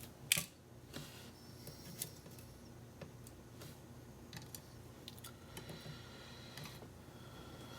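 Faint, irregular small metallic clicks and ticks from the pins, springs and tools being handled as a pin-tumbler challenge lock is taken apart, with one sharper click about a third of a second in.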